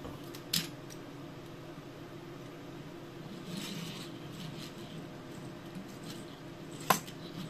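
A small diecast metal toy truck and trailer tapping and clicking as they are handled and set down on a hard tabletop. There is a light click just after the start and faint scraping in the middle. A sharp click about seven seconds in is the loudest.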